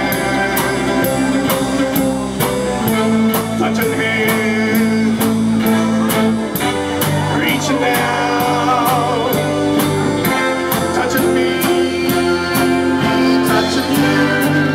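Live band playing a blues-rock number: electric guitar, bass, electric keyboard and drums keeping a steady beat, with a voice singing over it.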